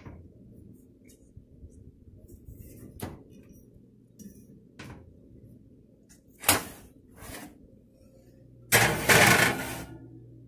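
A metal pie pan and oven rack handled as the pie goes into the oven: a few scattered knocks and clinks, then a loud clattering rattle lasting about a second near the end.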